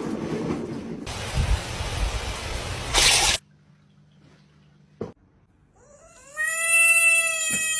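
Loud rushing noise for about three seconds that cuts off suddenly; after a quiet pause, a cat gives a long, drawn-out yowl that falls slightly in pitch.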